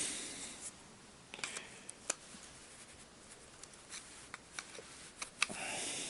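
Scattered light clicks and scrapes of hand tools working the retaining clip off the shaft of a GAZelle heater fan motor, with a short rustle near the end.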